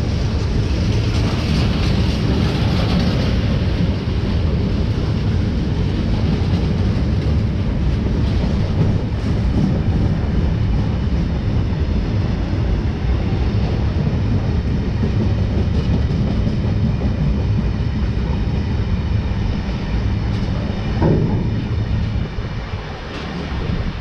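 Steel freight train passing close by, with the steady rumble and rattle of its wagons rolling over the track.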